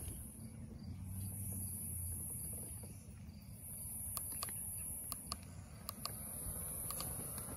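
Insects trilling at a high pitch, the trill pausing every couple of seconds, over a low rumble. About half a dozen sharp clicks come in the second half.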